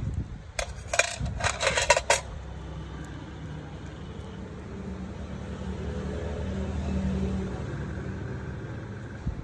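A quick run of light metal clinks about a second in: small steel nail tools knocking together as the pick is put down and the nail nipper taken up. Later a low hum swells and fades.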